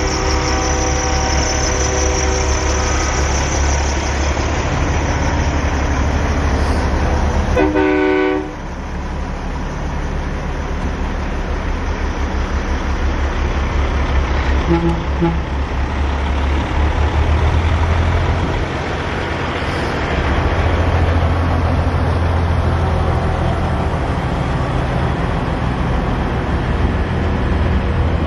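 Semi-truck diesel engines running as the rigs roll slowly past. A short air-horn blast sounds about eight seconds in, and a brief double toot comes around fifteen seconds.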